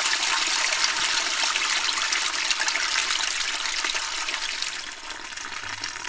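Toilet flushing: a steady rush of water that weakens over the last second or so and tails off near the end.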